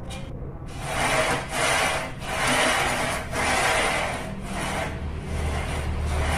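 The white carriage of a DIY CNC foam cutter is slid back and forth by hand along its black rail, its wheels rolling with a rasping rub in repeated strokes.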